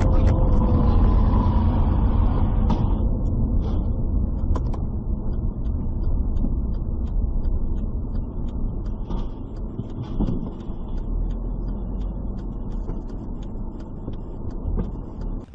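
Steady low rumble of car road and engine noise heard from inside a moving car, with a few faint clicks and knocks. A faint whine dips slightly in pitch about a second in.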